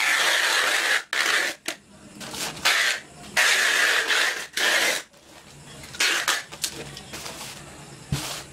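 Black plastic wrapping crinkling and rustling as it is pulled and stepped on, in several separate bursts with short quiet gaps between.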